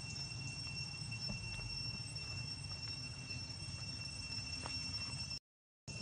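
Steady high-pitched insect drone, two even tones held without a break, over a low background rumble. The sound cuts out completely for about half a second near the end.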